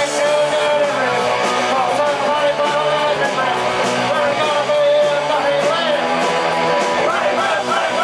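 Live punk rock band playing: electric guitars and drums, with a man singing into a microphone over them.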